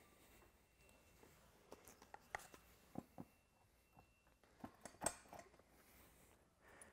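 Faint, scattered clicks and knocks of a plastic Y-drop base and shield being handled and fitted onto a sprayer drop riser, with near silence between them.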